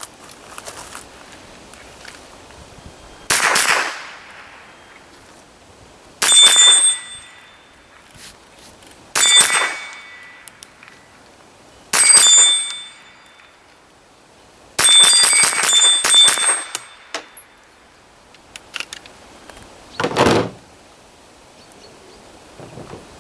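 Single shots from a GSG STG44 .22LR rifle, most followed at once by the ringing ping of a steel target plate. The shots come every few seconds, with a quick string of about four around the middle. The first and last shots have no ring.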